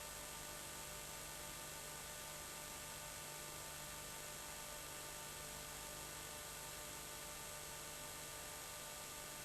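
Faint steady hiss with a low electrical hum and no distinct events: the recording's background noise floor.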